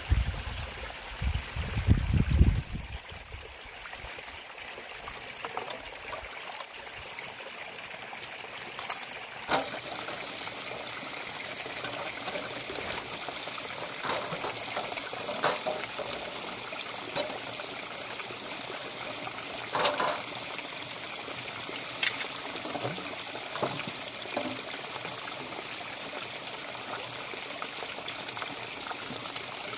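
Shallow stream trickling steadily over stones, with scattered clinks and scrapes of metal pots and a tray being scrubbed by hand. A few low thumps come in the first two seconds or so.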